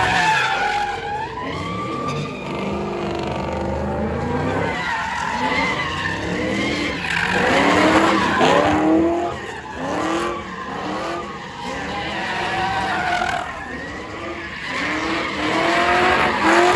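Tyres screeching as a car spins donuts on asphalt. In the second half the Ford Crown Victoria's V8 revs in repeated rising surges about once a second.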